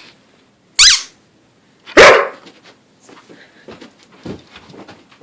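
Dog barking twice, short sharp barks about one and two seconds in, followed by faint shuffling and clicking.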